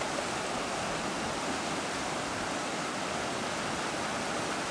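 River water rushing steadily over rapids, an even churning of flowing water with no single splash standing out.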